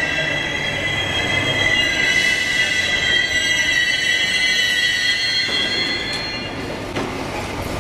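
MI84 RER electric train braking to a stop, its brakes squealing in several steady high tones that fade out as it halts about six and a half seconds in, followed by a click.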